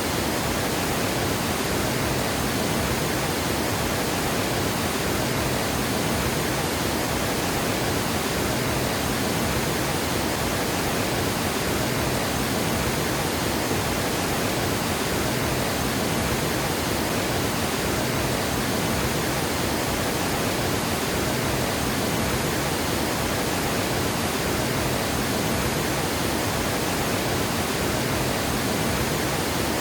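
Water gushing over a dam spillway: a steady, even rush of falling water with no changes.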